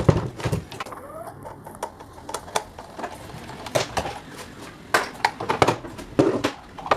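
Irregular clicks, knocks and light clatter of metal parts and tools being handled while an old table fan is worked on.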